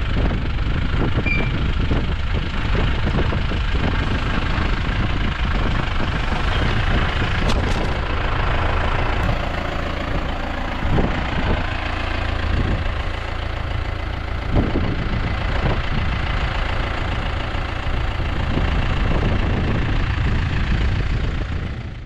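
Case IH Farmall 75C tractor's diesel engine running steadily while the tractor handles a round bale on its front loader.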